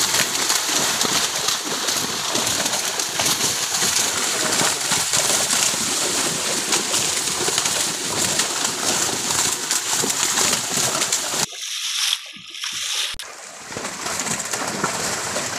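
Fish thrashing and splashing in the water trapped inside a seine net, a dense, constant churning splash. It drops away briefly for about two seconds near the end, then resumes.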